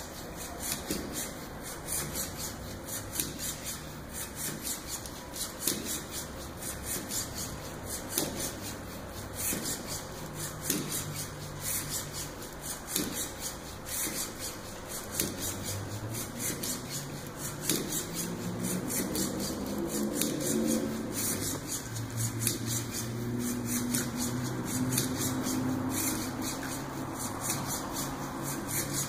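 Hobby servos of a Lynxmotion CH3-R hexapod robot whirring as it walks, with a steady run of small clicks from its moving legs. The whirring hum shifts in pitch and grows stronger in the second half.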